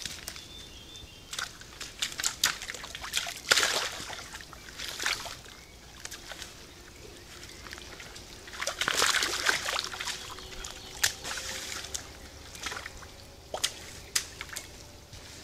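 Red deer stepping through and wallowing in a mud puddle: wet sloshing and splashing of mud and water, loudest about three and a half seconds in and again from about eight and a half to ten seconds, as one rolls in the puddle.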